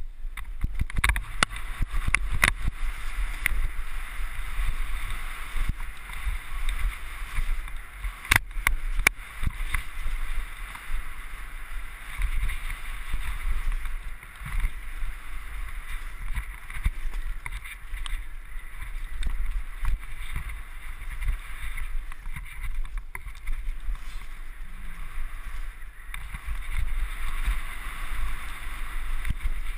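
Mountain bike riding fast down a gravel and dirt forest trail: steady wind rush and tyre rumble, with sharp knocks and rattles of the bike over bumps, the loudest a little after a second in and about eight seconds in.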